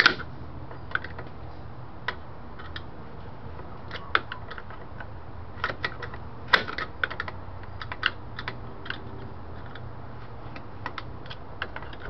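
Awl tips clicking and scraping against a steel light-switch retaining nut on a dashboard as it is turned. The small metallic clicks come irregularly, with a sharp one right at the start and another about six and a half seconds in.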